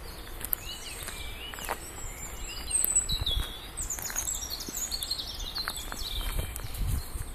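Several small birds chirping and singing in woodland, the calls thickest in the middle, over the walker's footsteps on a gravel path.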